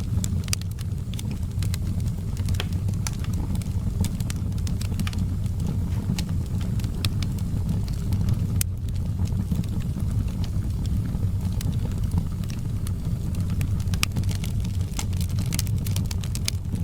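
Wood fire burning in a fireplace: a steady low roar of the flames with frequent sharp, irregular crackles and pops.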